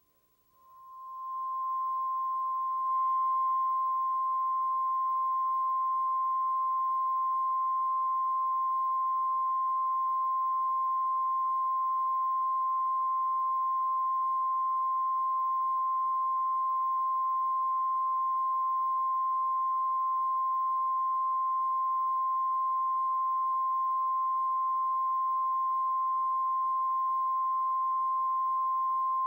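Steady 1 kHz reference tone of a colour-bars-and-tone test signal, one unbroken pitch. It fades up over the first second or two, then holds at a constant level.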